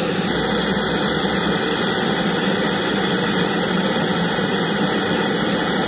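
Handheld gas blowtorch burning with a steady hiss, its flame heating the seized diesel vaporiser fitting on the exhaust to free it.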